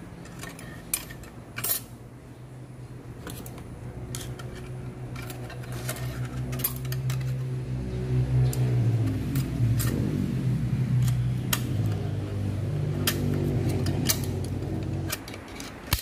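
Irregular sharp metal clicks and clinks as a snap ring is worked into its groove with a screwdriver inside a Mazda 3 automatic transmission case, securing the low-and-reverse brake clutch pack. Behind them a low droning hum with a steady pitch grows louder through the middle and stops about a second before the end.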